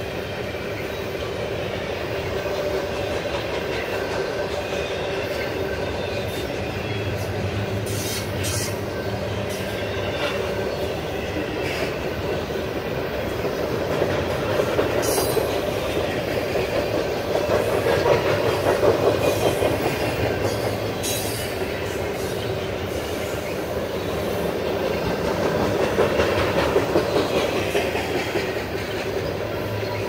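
Double-stack intermodal well cars rolling past close by: steady rumble and clatter of steel wheels on the rails, swelling louder twice, around the middle and near the end.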